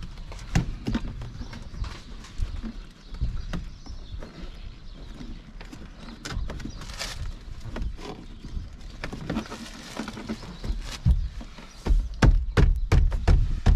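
Irregular knocks and clicks of hands pressing the rubber door seal and plastic pillar trim back into place in a van cab, with heavier thumps clustering near the end.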